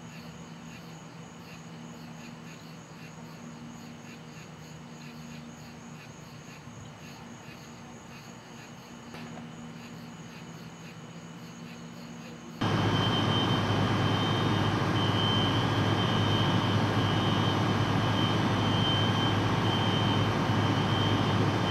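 Faint crickets chirping over a low steady hum. About halfway through, an abrupt cut to the loud, steady drone of a fire apparatus's engine and pump, with a pulsing high tone over it.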